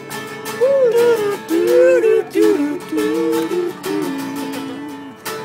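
Acoustic guitar strummed in a steady rhythm, with a wordless melody line bending up and down over it.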